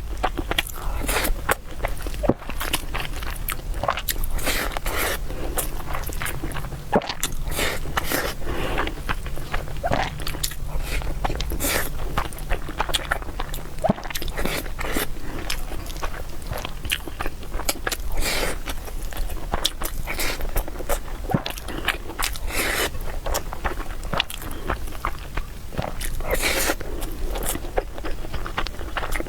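A person chewing and biting food close to the microphone, a steady run of many short clicks and smacks.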